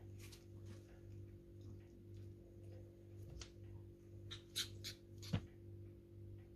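Steady low hum, with a few light clicks about four to five seconds in and one sharper knock just after, as a Pomeranian puppy noses its toys and ball on a tiled floor.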